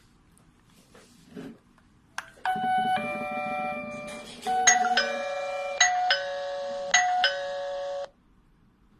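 A click, then an electronic doorbell chime playing a short multi-note tune for about five and a half seconds, stopping abruptly.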